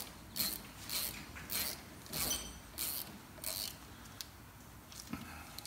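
Hand ratchet clicking in quick back-and-forth strokes, about two a second, as it runs down a brake caliper guide pin bolt. The strokes stop about three and a half seconds in, followed by a few light clicks and a soft knock.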